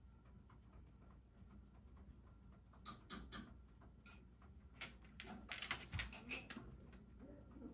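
Quiet room with a scattering of light clicks and taps, a few about three seconds in and a quicker cluster around five to six seconds in.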